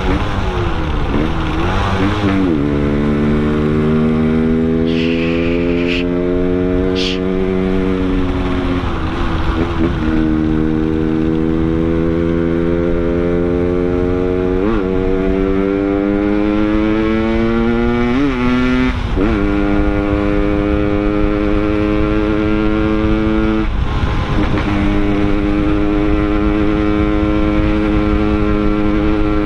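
Yamaha RX-King two-stroke single-cylinder motorcycle engine pulling under way, its pitch climbing slowly through each gear and dropping sharply at each of about four upshifts, with wind noise underneath.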